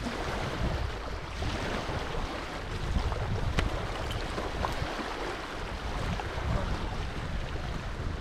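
Wind buffeting the microphone in uneven low rumbles over a steady hiss. A single sharp click comes about three and a half seconds in.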